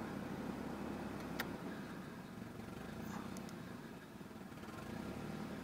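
1992 Nissan 240SX's 2.4-litre four-cylinder engine idling roughly, the idle bouncing: it drops off about a second and a half in and comes back up near the end. A brief sharp click just before the dip.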